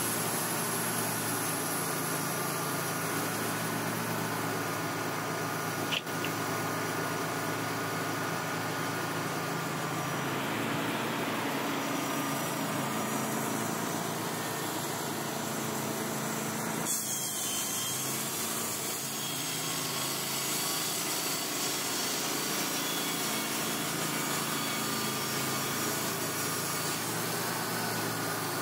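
Wood-Mizer LT35 HD portable sawmill running steadily, its engine humming while the band blade saws through a log. There is a sharp click about six seconds in, and the sound shifts a little past halfway.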